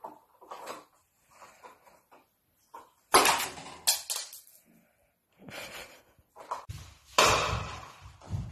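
Sharp knocks and clatters of small objects hitting wooden furniture. The loudest comes suddenly about three seconds in, and a second loud stretch with deep thuds follows near the end.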